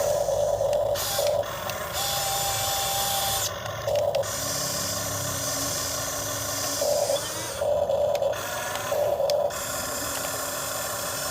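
RC excavator's electric motors running with a steady hiss, rising to a louder whine in about six short bursts of under a second each as the machine works its controls.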